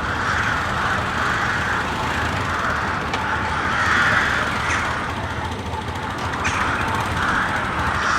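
Crows cawing over and over, harsh calls about one a second, over a steady low background rumble.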